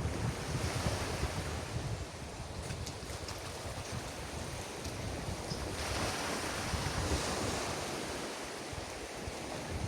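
Waves washing onto a beach, with a fuller wash of surf coming in about six seconds in, and wind buffeting the microphone.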